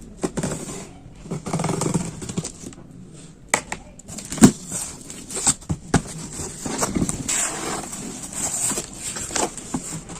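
A parcel being opened and handled by hand: irregular rustling and scraping of packaging, with scattered sharp knocks.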